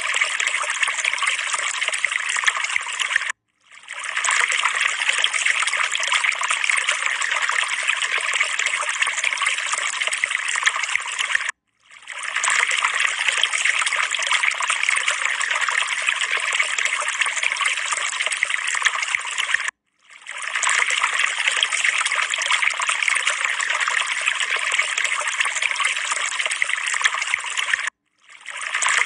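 Steady trickling, running-water sound. It cuts out briefly and fades back in four times, about every eight seconds, as a looped background recording does.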